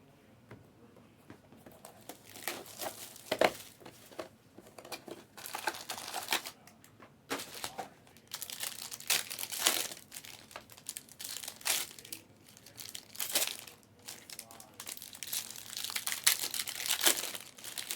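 Foil trading-card packs being torn open and their wrappers crinkled, in irregular rustles and rips that begin about two seconds in.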